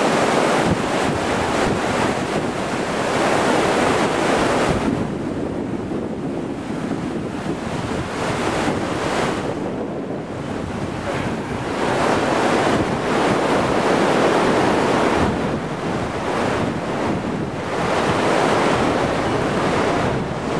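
Floodwater rushing through a dam's spillway as whitewater, a loud, steady rush of water; it eases a little about five seconds in and swells again around twelve seconds in. The river is at high flood, running fast.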